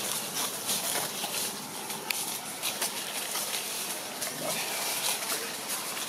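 Dry fallen leaves crackling and rustling, with many small irregular clicks like steps through leaf litter, over a steady high-pitched hiss.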